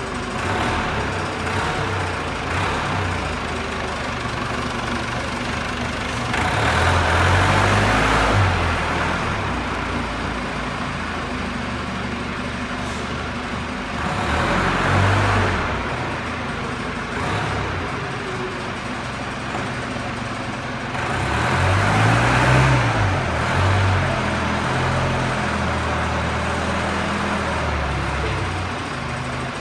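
Engine of a large BT counterbalance forklift running as the truck drives about, rising in speed and loudness three times as it accelerates.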